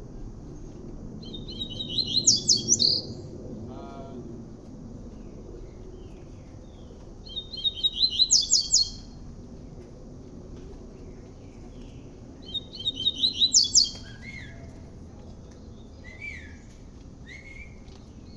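Double-collared seedeater (coleiro) singing three short phrases of quickly repeated high notes, each about a second and a half long, spaced several seconds apart. Fainter chirps come in between.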